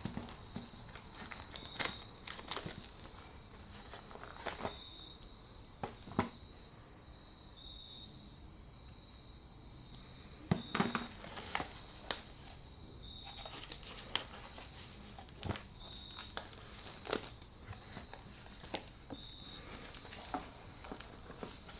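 Thin plastic wrapping crinkling and rustling as it is handled and pulled off a cardboard box, with scattered sharp clicks and taps from the box and parts being handled.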